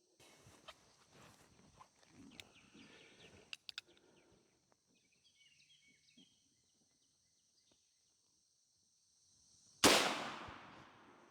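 A single shot from a Ruger Single-Six .22 rimfire revolver: one sharp crack near the end that echoes away over about a second and a half. Before it come rustling and a few sharp clicks of the gun being handled, over a steady chirr of insects.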